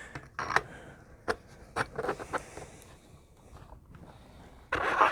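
Light clicks and knocks from metal airgun parts being handled, most likely the BB gun's barrels, with a short scrape or rustle near the end.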